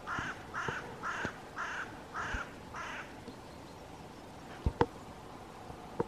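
A corvid calls six harsh, caw-like notes in a row, about two a second, for the first three seconds. A few sharp clicks follow near the end.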